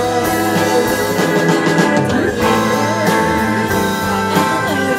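Live rock band playing: a woman singing over electric guitar, bass, keyboard and drums.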